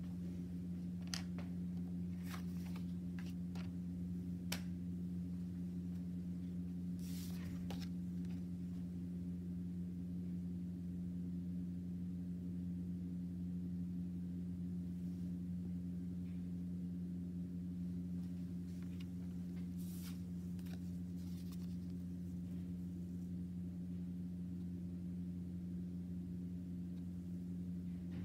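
A steady low hum, with a few brief rustles and taps from handling paper, a ruler and index cards, mostly in the first eight seconds and again about twenty seconds in.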